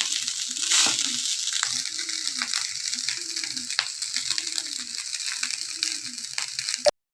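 Fried rice sizzling in a hot pan, with the clicks and scrapes of a spatula stirring it. Under it is a faint low tone that rises and falls about once a second. Everything cuts off abruptly near the end.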